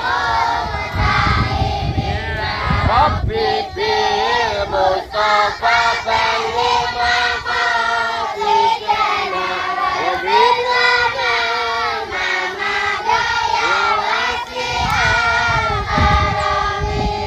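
A large group of children's voices, joined by a few adults, chanting a tahlil recitation together in unison, with melodic held notes.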